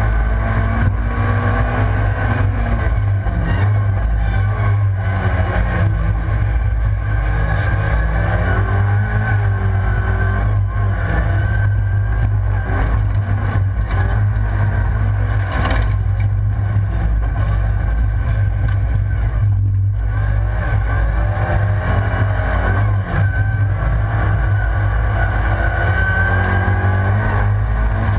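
Rallycross car's engine at race pace, heard from inside the cabin: the revs climb and drop again and again through gear changes and corners over a constant low drone. A brief sharp noise cuts through about halfway through.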